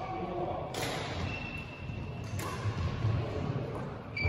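Badminton shuttlecock hits echoing in a large sports hall: three sharp strikes about a second and a half apart, some leaving a short ringing ping, as in a rally.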